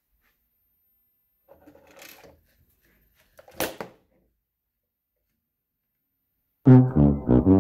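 Faint rattle of LEGO motors and gears, then a single sharp plastic clack about three and a half seconds in as the toy trash can is set down on the table. Near the end a loud "sad trombone" fail sound effect starts with short brass notes.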